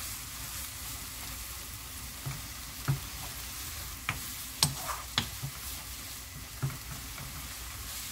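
Young perilla leaf shoots sizzling in perilla oil in a nonstick frying pan while being stir-fried with a wooden spoon, with a steady sizzle and a few light knocks of the spoon against the pan.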